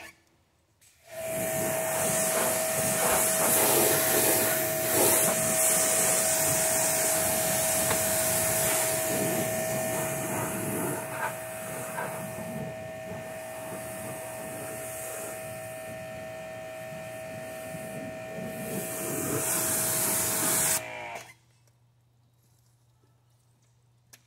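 Electric pressure washer running with its trigger held: a steady motor-and-pump whine under the hiss of the water spray. It starts about a second in and cuts off after about twenty seconds, the motor winding down as the trigger is released.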